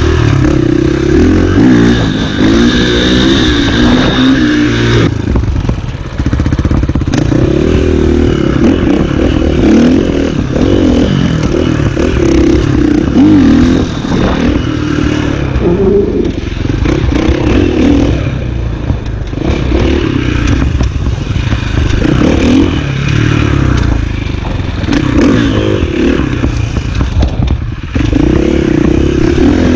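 KTM EXC 450 enduro bike's single-cylinder four-stroke engine revving up and down over and over as it is ridden, its pitch rising and falling every couple of seconds.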